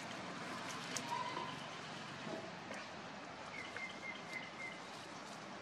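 Outdoor ambience of steady background noise with a small bird calling: a short note about a second in, then a quick run of five evenly spaced chirps about two thirds of the way through.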